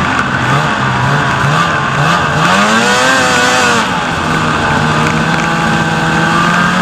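Snowmobile engine under way, its pitch climbing in short steps over the first few seconds, peaking about three seconds in, then easing back to a steady run.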